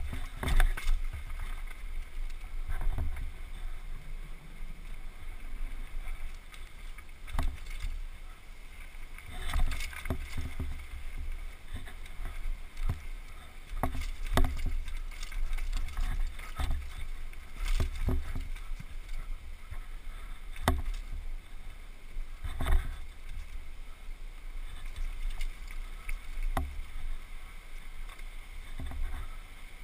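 Downhill mountain bike ridden fast over a dirt trail: a steady low rumble of wind on a helmet-mounted camera's microphone, with sharp knocks and clatters as the bike hits roots and bumps, a dozen or so through the run.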